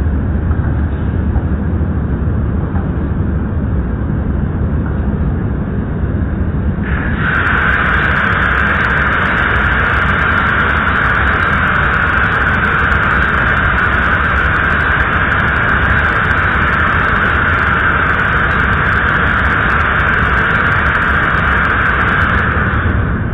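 Machinery running steadily with a continuous low drone; a louder, higher hiss joins about seven seconds in and stops just before the end.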